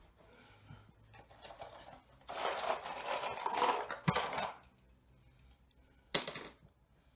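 Metal screws rattling and clinking in a small cardboard box, in a long jingling bout of about two seconds with a sharp clack near its end, then a short second rattle.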